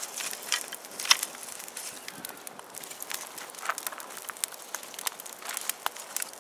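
Newly lit campfire kindling of pine needles, twigs and pine cones crackling, with frequent irregular sharp pops, the loudest about a second in.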